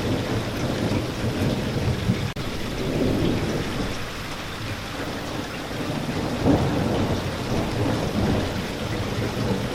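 Steady heavy rain with a low rolling rumble of thunder underneath. The sound swells briefly a little past the middle, and cuts out for an instant about two seconds in.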